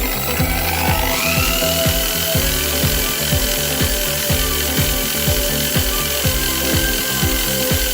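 Background music with a steady beat, over a small electric motor that spins up about a second in and then runs with a steady whine.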